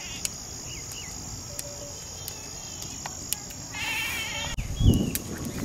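Insects chirring steadily, with scattered chirps and a short denser burst of chirring about four seconds in. A few sharp clicks sound, and a loud low thump comes near the end.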